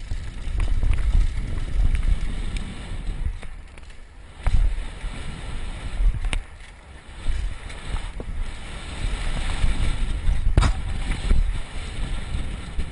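Wind buffeting a helmet-mounted camera's microphone while a mountain bike rolls fast down a dirt trail, with tyre noise on the ground and several sharp knocks and rattles as the bike hits bumps.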